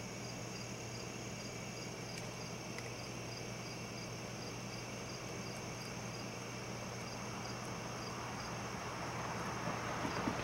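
Night-time crickets: a regular chirp about three times a second over a steady high-pitched insect trill, with a low steady hum beneath. A rustling noise rises near the end.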